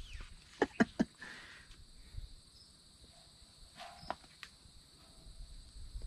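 Faint steady high-pitched insect chirring, with three sharp clicks in the first second.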